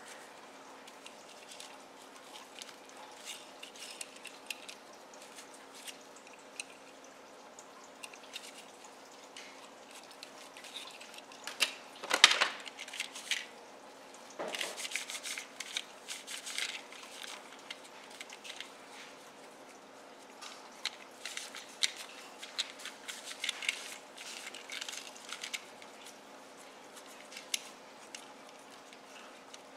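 A cloth rubbing over small plastic toy parts, with scattered rustles and light plastic clicks and taps as they are handled and turned; the loudest knock comes about twelve seconds in, followed by a few seconds of heavier rubbing. A faint steady hum runs underneath.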